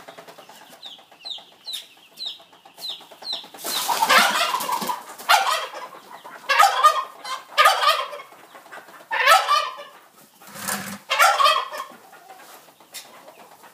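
Flock of laying hens clucking and squawking as they are fed kitchen scraps. A run of short, high, falling chirps comes first, then loud harsh calls about once a second.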